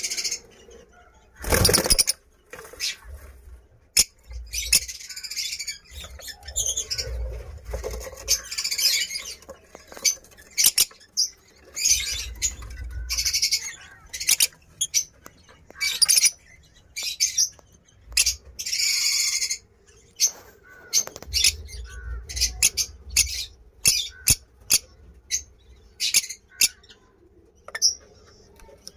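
Masked lovebirds calling: shrill, high-pitched chirps and chatter in short bursts, repeated every second or so. Low rumbles come and go underneath.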